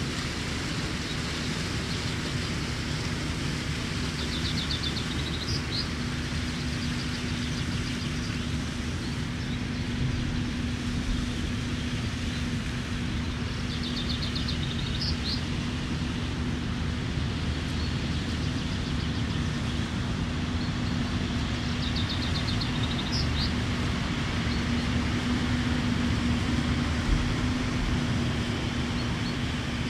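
A passing canal boat's engine gives a steady low hum and rumble. Over it a contest chaffinch sings four times, about every nine seconds, each time a quick rattling series of high notes ending in a flourish.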